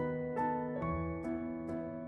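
Soft instrumental background music: a gentle melody of held notes, a new note coming roughly every half second.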